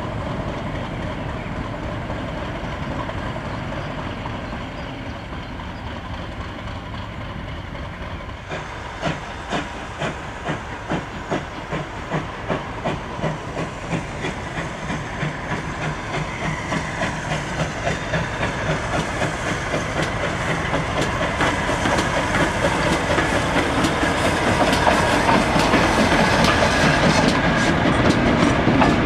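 British Rail Class 50 diesel locomotive, with its English Electric 16-cylinder engine running as it approaches hauling a train of stock, growing steadily louder. From about eight seconds in, the wheels click rhythmically over rail joints, about two clicks a second.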